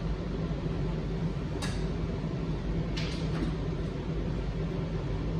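Steady low room hum with two sharp clicks, about a second and a half apart.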